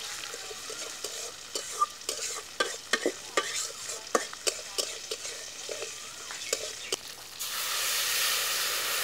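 A metal spatula scraping and clacking against a steel wok as food fries in oil, with a steady sizzle underneath. About seven and a half seconds in, water poured into the hot pan sets off a loud, hissing sizzle.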